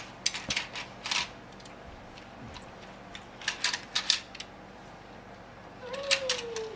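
Toys being handled: short sharp plastic clicks and clacks in small clusters, about a second in, again around three and a half to four seconds in, and near the end. A short falling vocal sound, likely the child, comes just before the end.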